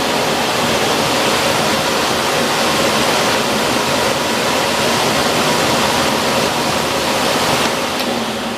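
Philips P74 canister vacuum cleaner with a twin-turbine motor, running at full power with a steady rushing of air and a faint whine. Near the end there is a click, and the motor begins to wind down.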